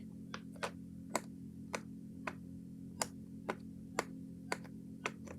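Silicone pop-it fidget toy pressed bubble by bubble on its loud side: a string of about ten sharp pops, roughly two a second.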